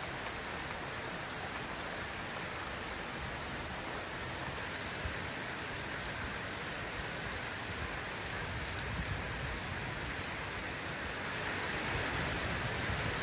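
Heavy rain pouring down steadily in a dense, even hiss, growing a little louder near the end.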